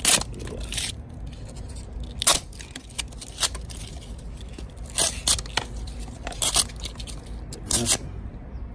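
Flat-ground AEB-L steel knife blade slicing through corrugated cardboard in a cut test. About seven short, sharp scraping cuts come a second or so apart, two of them close together about five seconds in.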